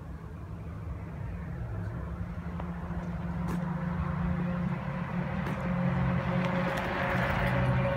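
A fat-tire bicycle approaching and passing, its wide tyres humming on the paved path and growing steadily louder as it nears, over a steady low rumble.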